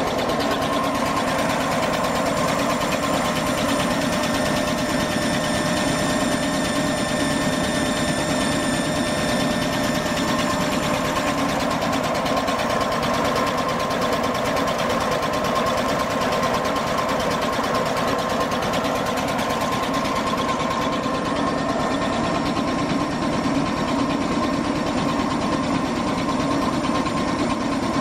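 Restored Fairbanks Morse 3.5 kW DC dynamo running steadily on a belt-driven test run: an even, fast mechanical whir with a steady whine. A set of higher whine tones fades out about a third of the way through.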